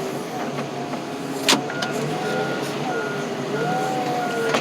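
Heavy equipment's diesel engine running, its pitch rising and falling as it revs. There is a sharp click about a second and a half in, and then a steady series of short, evenly spaced alarm beeps.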